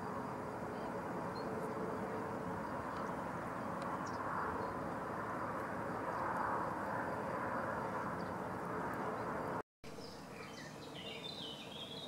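Steady outdoor background rumble that swells in the middle, with a few faint high bird chirps over it. A brief dropout near the end gives way to a quieter recording with small birds twittering.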